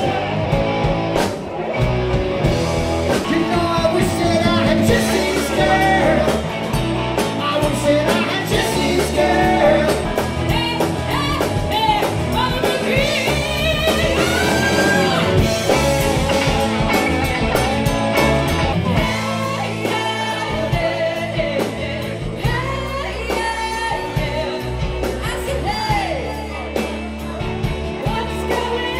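A live rock band plays a song with a singer on lead vocal, backed by electric guitars and drums.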